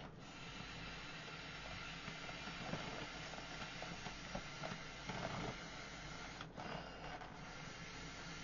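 A person blowing air by mouth into the valve of an inflatable boat: long steady rushing blows, broken by short pauses for breath at the start and about six and a half seconds in.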